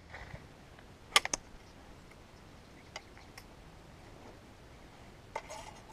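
Sharp clicks from a shotgun being handled just after firing, a pair close together about a second in and a few fainter ones later. Near the end come scattered rustling and steps on dry ground.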